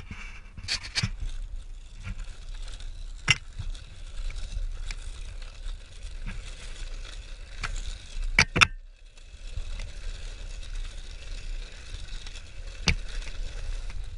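Riding down a loose dirt trail: steady wind and rolling rumble on the action camera's microphone, with sharp rattling knocks as the ride goes over bumps, the loudest a close pair about two-thirds of the way through.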